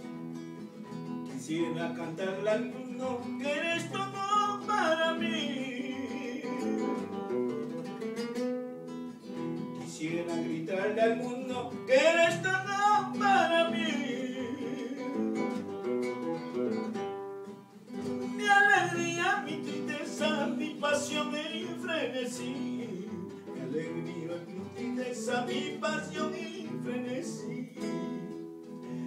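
Live acoustic guitar strummed and plucked, with a singer's voice coming in over it in long sung phrases that have short gaps between them.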